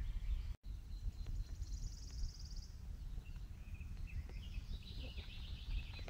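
Woodland ambience: a steady low rumble with small birds singing over it, a rapid high trill about two seconds in and chirping through the second half. The sound cuts out for an instant near the start.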